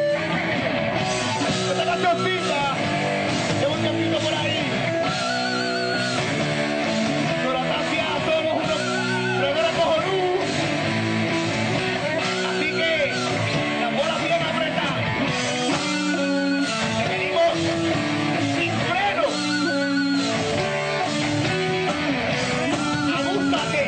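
Live rock band playing loud and without a break: electric guitars, bass and drums on a dense, changing riff, with a wavering high note sounding now and then.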